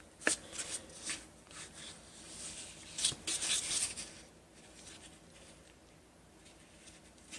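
Light handling sounds: a sharp click, then short rubbing scrapes of plastic cookie cutters and dough being worked on a counter, grouped about three seconds in and thinning out toward the end.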